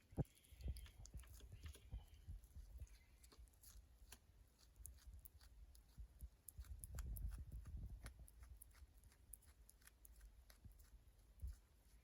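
Rock hyrax chewing a flower bud: faint, quick, crisp crunching clicks, with a low rumble near the middle.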